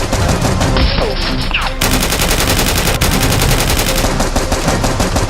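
Rapid bursts of automatic gunfire sound effects, shots following in quick succession, with a brief whistling glide about a second in.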